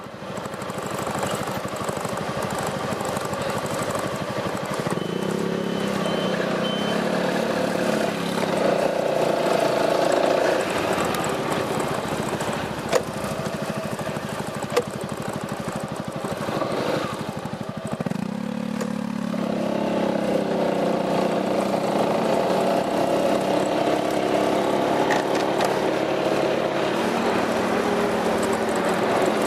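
Piaggio MP3 400 scooter's engine running through an Akrapovic exhaust, its pitch climbing, dropping back a little past the middle, then climbing again. Two sharp clicks a little past the middle.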